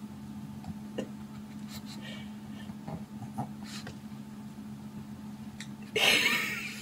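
A low steady hum under soft fabric rustles and small clicks as a small dog tugs a blanket off an infant car seat. About six seconds in, a brief loud rush of noise.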